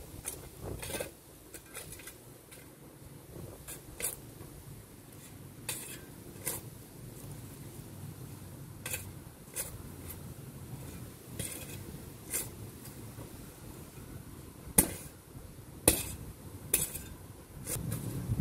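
Steel shovel blade chopping and scraping into stony garden soil: irregular sharp clinks a second or two apart, the two loudest strikes coming a few seconds before the end.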